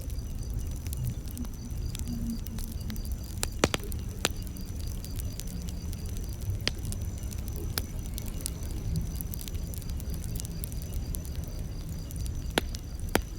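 Campfire burning with a low steady rumble of flames and scattered sharp pops and snaps from the wood, the loudest pops about four seconds in and again near the end. A faint steady high-pitched trill runs underneath.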